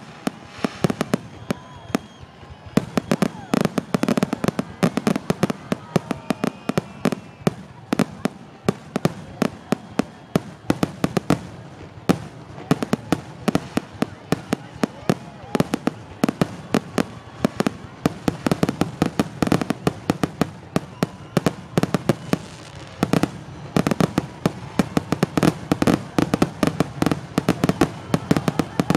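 Aerial fireworks shells bursting in a dense, continuous barrage, several sharp bangs a second, with a short thinner spell about two seconds in.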